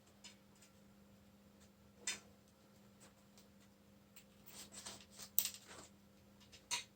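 Scattered light clicks and scratchy scrapes of a small screw being turned by hand into a wooden painting stretcher bar, with a cluster of scrapes about five seconds in. The screw is hard to drive, which she puts down to a knot in the stretcher.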